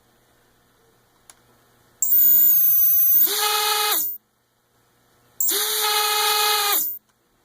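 A small motor, which its owner calls bad, run twice in short bursts of about two seconds and a second and a half, each a steady whine with a harsh hiss that starts and stops abruptly.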